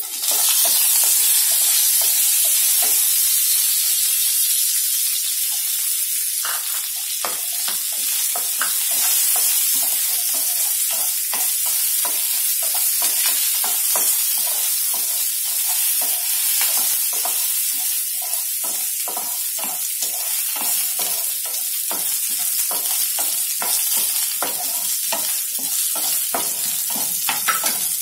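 Onion pieces frying in hot oil with tempering spices and curry leaves in a nonstick pan: a loud sizzling hiss that starts suddenly as they go in. From about six seconds in, a wooden spatula stirs and scrapes the pan a couple of times a second over the steady sizzle.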